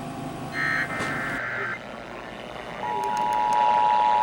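Emergency Alert System broadcast tones: a short digital data burst about half a second in, the last of a series of evenly spaced bursts that mark the end of an alert. About three seconds in, the steady two-tone EAS attention signal starts, announcing the next alert.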